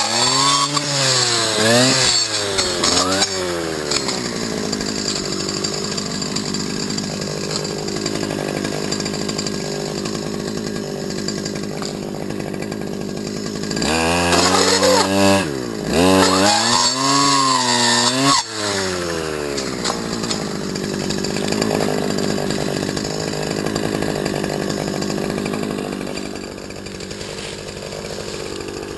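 STIHL FS250 brush cutter's two-stroke engine being revved: its pitch rises and falls several times at the start and again in a burst about halfway through, running more steadily in between and afterwards.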